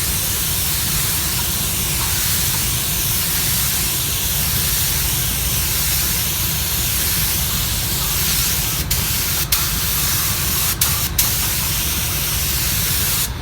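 Compressed-air paint spray gun hissing steadily as paint is sprayed onto a car bumper, with a few brief breaks in the hiss between about nine and eleven seconds in.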